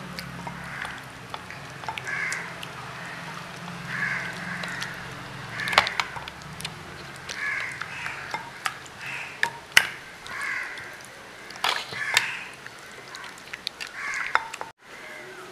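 Hands squishing raw chicken leg pieces through a thick green marinade in a glass bowl, with sharp clicks as fingers and chicken knock against the glass. Short bird calls repeat every second or so behind it.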